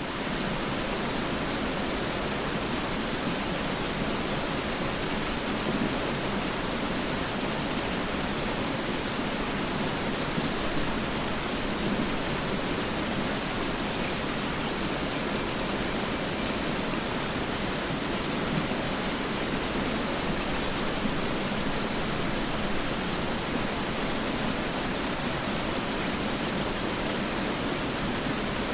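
Mountain river flowing: a steady, even rush of water over rocks, with no breaks.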